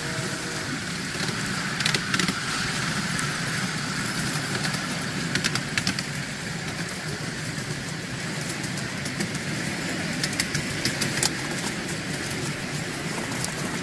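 Miniature railway train running along the track, heard from an open passenger car: a steady rumble of wheels on rail. Clusters of sharp clicks from the wheels and track come about 2 seconds in, around the middle and again near the end.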